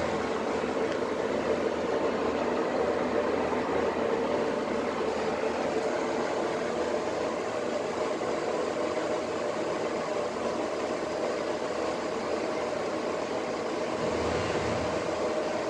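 Fasco ceiling exhaust fan running steadily: an even rush of air with a steady mid-pitched hum.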